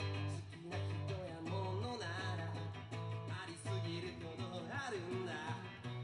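Live band music: a semi-acoustic guitar played over a steady bass, with a singing voice carrying a wavering melody from about a second in.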